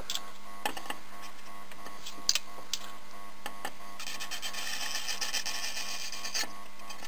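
Soldering iron tip dragging along the pins of a surface-mount chip to clear solder bridges: a few faint taps and scrapes over a steady electrical hum, with a soft hiss for about two seconds in the second half.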